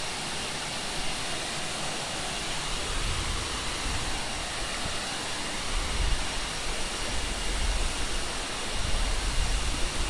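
Steady rushing of a waterfall and water running over rocks, with low rumbles that come and go in the middle and toward the end.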